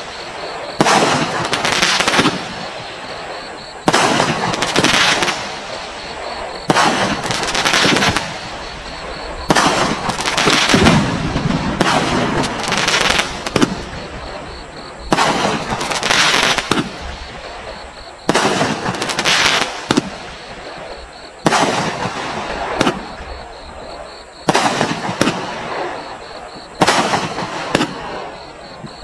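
Bright Star 'Road Rage' 72-shot fireworks cake firing a steady series of shots. Sharp bangs come roughly every second or two, each trailing off over about a second.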